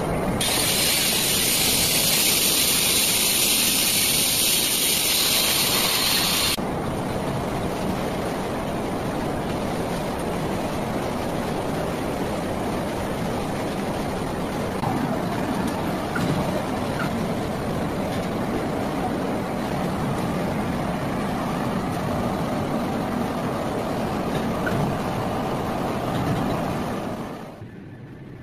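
Atlas bridge saw cutting a marble slab, a loud high hiss that stops abruptly about six and a half seconds in. Steady machinery noise follows and falls away near the end.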